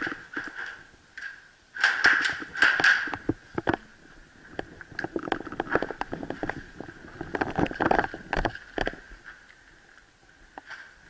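Footsteps and gear rustle on a gritty concrete floor. About two seconds in comes a quick run of sharp cracks that echo in the room, followed by scattered clicks and knocks.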